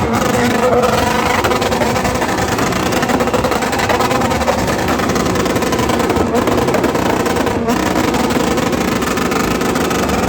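Motorcycle engine running steadily, a dense continuous engine noise.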